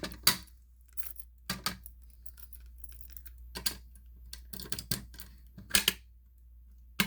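Keys jangling and a string of irregular sharp clicks and clacks as a Simplex fire alarm pull station is reset with its key.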